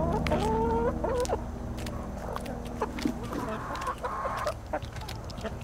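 Backyard chickens clucking, with one long wavering call in the first second and a half and a shorter one a little past the middle, among scattered sharp clicks.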